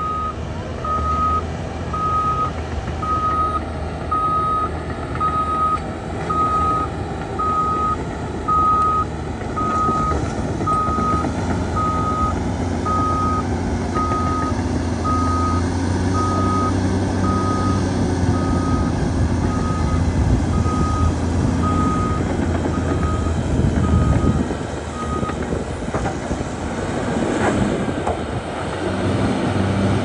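Cat D6R2 crawler bulldozer's diesel engine running under load while its reverse alarm beeps steadily, about once a second, stopping a few seconds before the end.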